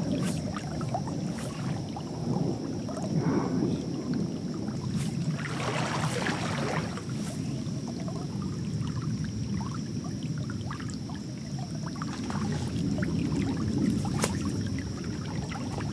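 Creek water sloshing and swirling around a person's legs as he wades through knee-to-waist-deep current, with a louder surge of splashing midway.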